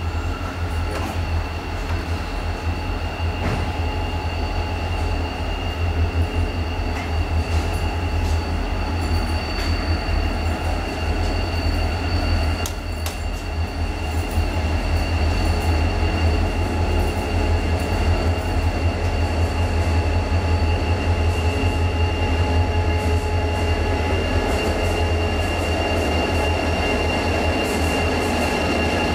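Two Clyde-built EMD C-class diesel-electric locomotives hauling a passenger train, running slowly into the platform with a deep, pulsing engine rumble that gets louder as they draw near. A steady high-pitched squeal from the train rings over the engine noise.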